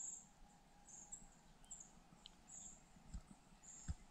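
Quiet forest ambience: faint, short high-pitched chirps repeating roughly once a second, with a couple of brief low thumps near the end.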